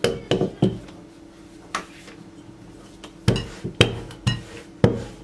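Wooden rolling pin knocking against the worktop as baklava dough is rolled out: a series of sharp knocks, a few near the start, then a quick run of them from about three seconds in.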